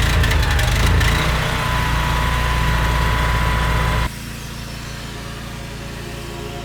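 Petrol engine of a pressure-washing machine running steadily; the sound drops abruptly in level about four seconds in and carries on quieter.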